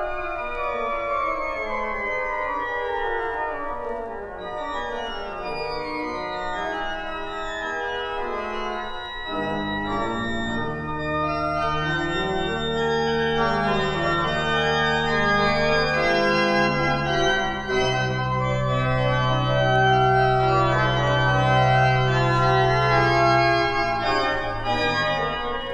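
Pipe organ playing: quick running figures over many notes, then deep pedal bass notes come in about nine seconds in beneath held chords, the sound growing fuller and louder toward the end.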